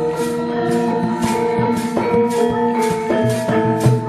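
Javanese gamelan playing: ringing metallophone notes over low gong-like tones, with sharp percussive strikes about twice a second.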